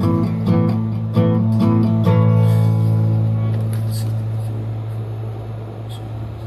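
Acoustic guitar played as an instrumental break between sung lines. A few chords are sounded in the first two seconds, then the last chord is left to ring and slowly fade.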